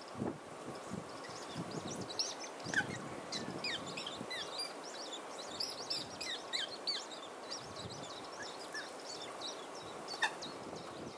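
Coots and other waterbirds calling on open water: many short, sharp calls and high chirps overlap with no pause, with a louder call about three seconds in and again near the end.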